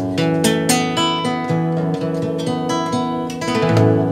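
Acoustic guitar strummed, playing chords in a steady rhythm: the instrumental introduction of a song.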